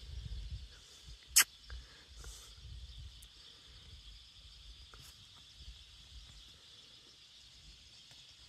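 Quiet outdoor ambience with a faint steady high hiss. There is one sharp click about a second and a half in, and a few fainter ticks after it.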